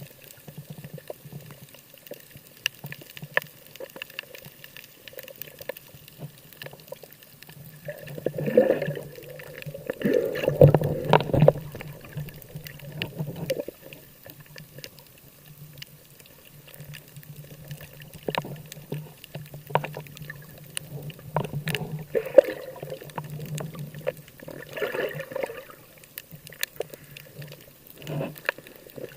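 Water sloshing and splashing, with louder surges about a third of the way in and again near the end, among scattered small clicks.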